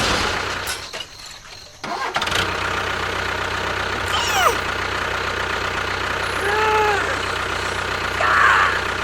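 An engine running steadily. It drops away about a second in and starts up again just before two seconds, then keeps going at an even pace. A few short arching whistle-like tones sound over it.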